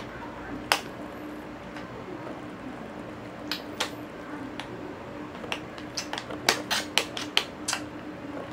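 Clicks and knocks of small hard toys being handled, scattered at first, then a quick run of them near the end, over a faint steady hum.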